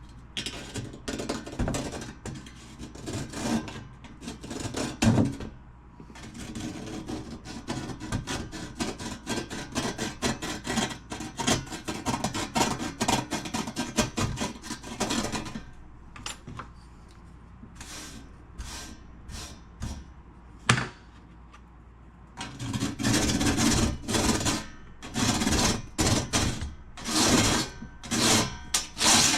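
Brush scrubbing rust off a metal surface by hand: rapid back-and-forth scratchy strokes that thin out past the middle, then come back louder and longer near the end.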